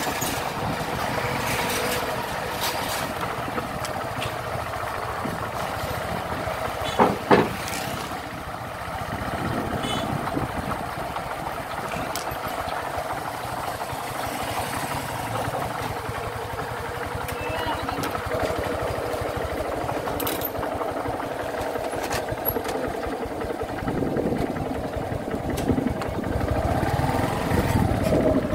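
Motorcycle engine running as the bike is ridden slowly, with wind and road noise on the handlebar-mounted microphone. Two brief loud sounds come about seven seconds in, and near the end the engine note rises and falls.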